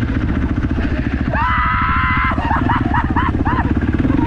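KTM 450 SX-F dirt bike's single-cylinder four-stroke engine running at a steady low idle with a fast even pulse. Over it comes one long high call lasting about a second, then about five short yelping calls.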